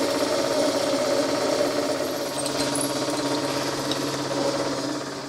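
Metal lathe running steadily with its chuck spinning, a drill in the tailstock boring into a pre-hardened 4140 steel disc. It begins to wind down near the end.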